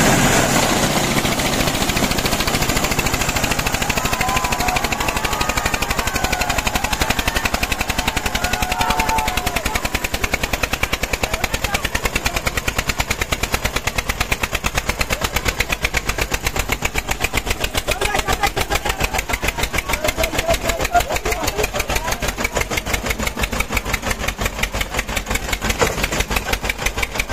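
Tractor diesel engines pulling hard against each other at full throttle, including the Eicher 241's single-cylinder diesel, in a rapid, steady chugging exhaust beat.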